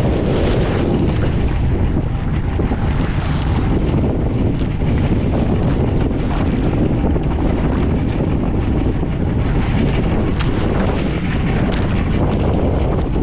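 Steady, loud wind buffeting the microphone aboard a fishing boat at sea, mixed with the rush of water against the hull.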